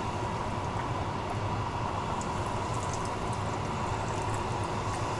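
Breaded crappie fillets frying in hot peanut oil: a steady sizzle with light crackles around the middle as another fillet is lowered in, over a steady hum.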